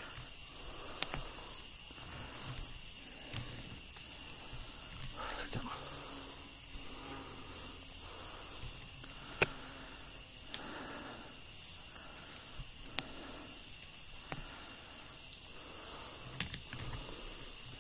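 Steady high-pitched chorus of night insects in tropical forest, with soft rustles about once a second underneath.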